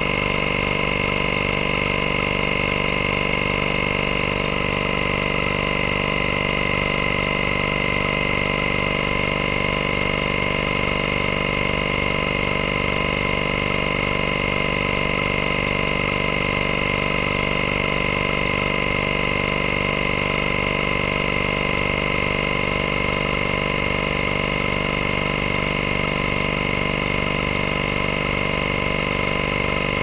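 Electric suction machine's twin-head pump running steadily, with a fast regular pulsing under a steady whine. A faint high tone drops away about four seconds in.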